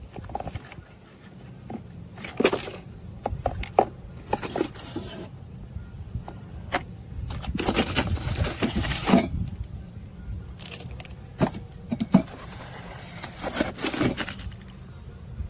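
Handling noises: a string of sharp clicks and knocks, with longer rustling or scraping stretches about halfway through and again near the end, over a low steady hum.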